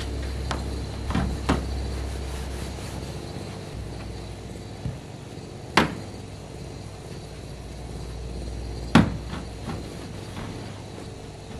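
Several sharp knocks and taps from working at the side of a caravan, the two loudest about six and nine seconds in, over a steady low rumble that fades partway through.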